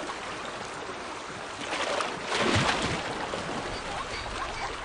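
River water splashing and churning as gazelles swim through it, with a louder surge of splashing about two and a half seconds in.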